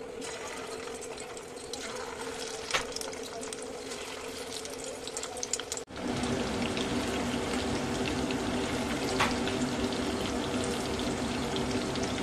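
Marinated chicken pieces sizzling as they fry in hot oil in a pan, over a steady low hum, with a couple of sharp taps of the spatula or tongs on the pan. The sizzle steps up louder about six seconds in, with the pan full of chicken.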